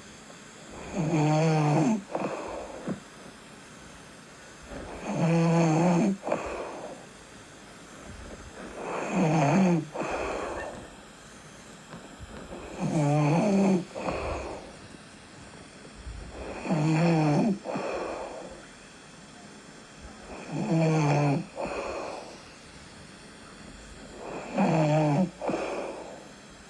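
A person snoring in a steady rhythm: seven loud snores, one about every four seconds, each followed by a softer breath.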